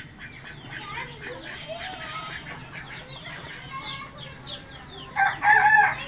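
Chickens clucking and chirping, with one loud call from a bird near the end.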